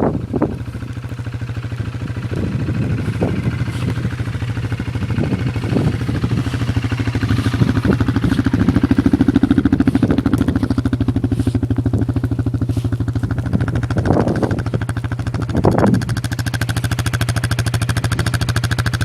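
A vehicle driving, heard from inside the cab: a steady engine and road drone that swells about halfway through, with occasional short knocks and clatters.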